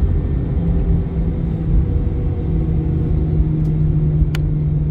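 Cabin noise inside an Airbus A321-200 on the ground: a steady low rumble with a constant low hum from the engines and rolling gear. A single sharp click comes near the end.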